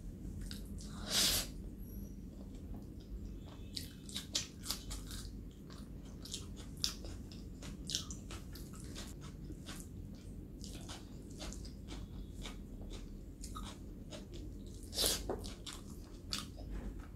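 Close-miked eating sounds: chewing of rice and kidney-bean curry with many small wet mouth clicks. There are two louder bursts, about a second in and near the end.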